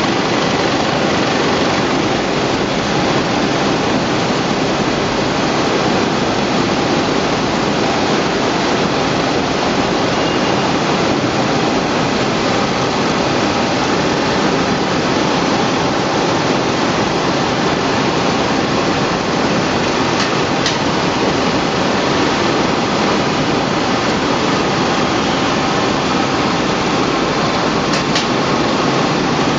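A no-twist welding-wire coiler running steadily, laying wire down into a packing carton: a loud, even machine noise with two faint ticks late on.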